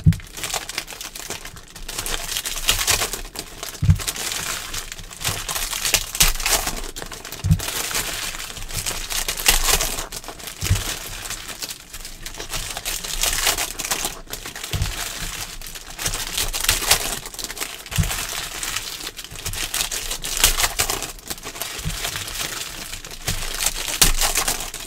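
Foil trading-card pack wrappers crinkling as they are handled and torn open, with a few light thumps of packs or cards set down on the table.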